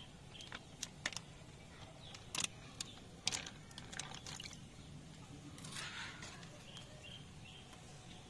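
Faint, scattered crackles and clicks of a clear plastic fish bag being handled in tank water, with a brief rustle about six seconds in.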